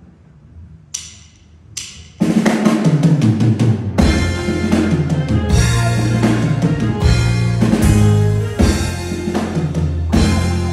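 Live reggae band starting a song: two short high hits, then instruments come in about two seconds in, and the full band with drum kit and bass enters about four seconds in and plays on at a steady groove.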